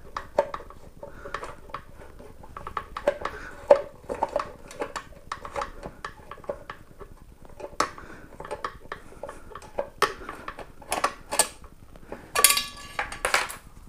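Steel Allen key clicking and scraping against a fairing screw as it is turned out by hand, a run of small irregular metallic clinks. Near the end a brief, louder ringing metallic clatter as the loosened screw falls.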